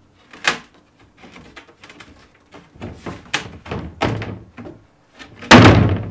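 Plywood cut-out panel being worked out of a jigsaw-cut opening in a plywood sheet, with a series of wooden knocks and scrapes. The loudest thud comes about five and a half seconds in, as the panel drops back into the opening.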